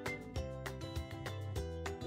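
Background music with a steady beat over held bass and melody notes.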